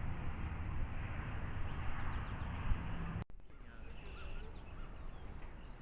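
A steady rushing outdoor noise that cuts off abruptly a little past halfway, followed by faint, short chirps of small songbirds.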